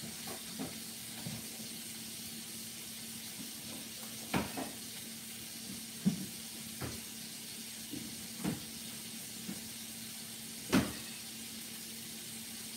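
Steady faint hiss with a low hum, broken by a scattered handful of light knocks and clicks; the loudest knock comes a little before the end.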